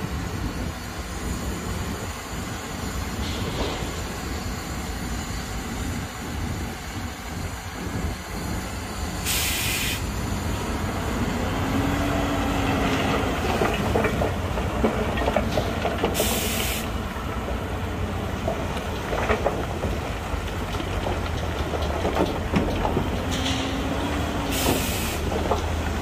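Heavy diesel dump trucks and earthmoving machinery running steadily, with three short, sharp air-brake hisses spaced several seconds apart.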